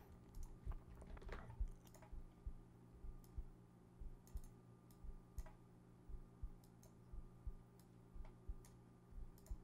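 Faint, irregular clicks of a computer mouse and keyboard as nodes are added and wired up, roughly one or two a second, over a faint steady hum.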